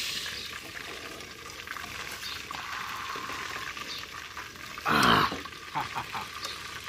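Chicken pieces frying in hot oil in a steel wok, a steady low sizzle, as a slotted spatula lifts them out. About five seconds in, one short loud pitched call stands out, followed by a few light clicks.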